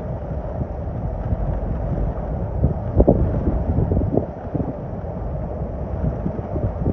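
Hurricane-force wind buffeting the microphone in a dense, low rumble, with stronger gusts about three and four seconds in.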